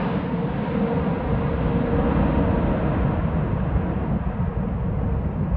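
Jet airliner on approach passing and moving away: a loud, steady jet rumble whose higher part slowly fades, with a faint steady whine, and wind gusting on the microphone.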